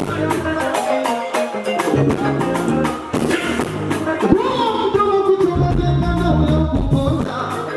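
Live dance music with a fast, steady drum beat and bass, with a singing voice coming in for a moment about four seconds in.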